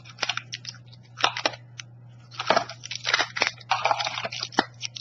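Crinkling of plastic wrappers as wrapped lollipops are handled, in irregular bursts of crackles.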